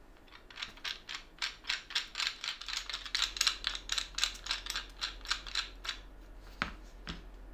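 Threaded steel rod of a plywood corner clamp turned by its plastic star knob, making a quick, even run of small clicks, about four or five a second. Two sharper knocks come near the end.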